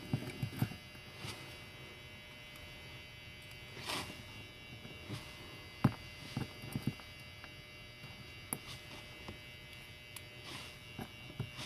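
Scattered small clicks and taps of a pin-tumbler lock cylinder and its pins being handled, a few at irregular intervals, over a steady faint electrical hum.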